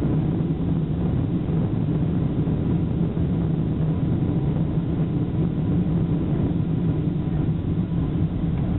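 Steady low drone of a Boeing 747-400's engines and cabin air, heard from inside the passenger cabin, with a faint steady whine above it.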